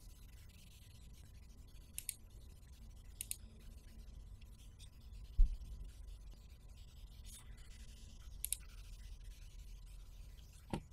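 Quiet room tone with a low hum from the narrator's microphone, a few faint clicks, and one dull low thump about five seconds in.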